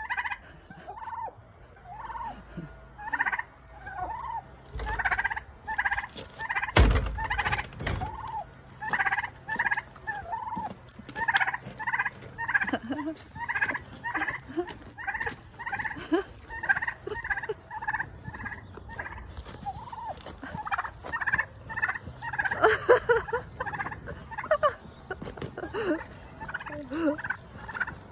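An agitated turkey in an aggressive display calls over and over, a short call roughly every half second to second. There is one loud thump about seven seconds in.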